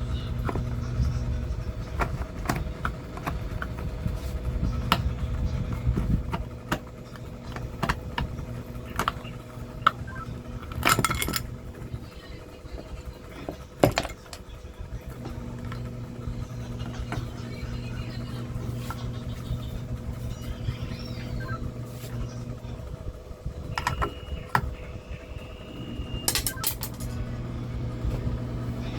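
Scattered small metal clicks and clinks of screws and tools being handled while a treadmill's motor controller is unscrewed. Under them runs a low steady hum that stops and restarts several times.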